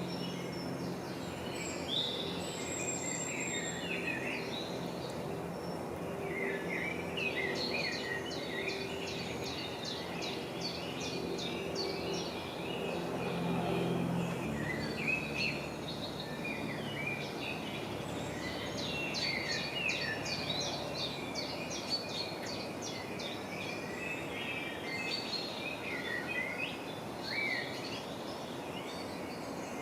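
Birds chirping and trilling in repeated short phrases, busiest in two bouts, over a steady low hum that drops in pitch about halfway through.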